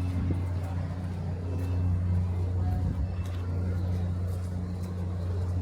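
A vehicle engine running steadily: an even, low drone that does not change in pitch.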